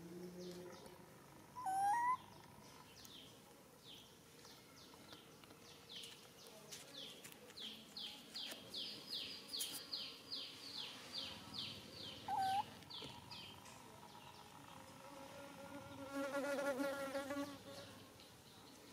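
Wild animal calls: a high, quick descending chirp repeated about two to three times a second for several seconds, two short louder rising calls about two seconds in and again near the middle, and a lower warbling call lasting over a second near the end.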